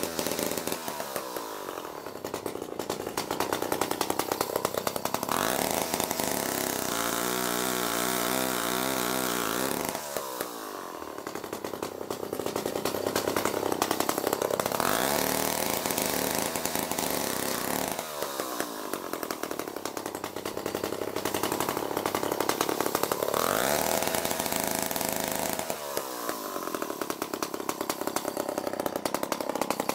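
Chainsaw running and cutting, its engine note dropping under load and climbing again every few seconds, with a short steadier stretch about seven seconds in.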